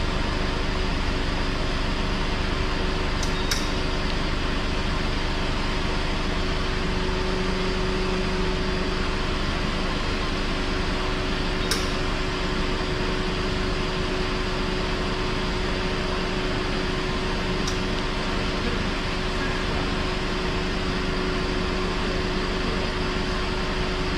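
Steady whir of a car's air-conditioning system running with the engine idling, its compressor and fans going, under a constant hum tone. A few short light clicks come through, two close together a few seconds in and two more later.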